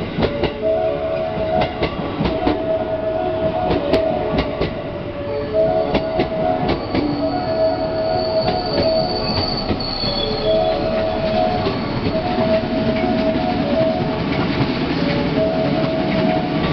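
JR West 207 series electric commuter train pulling in and slowing to a stop: wheels clicking over rail joints for the first several seconds, then a high brake squeal about eight to ten seconds in. A repeating two-note electronic tone sounds over it throughout.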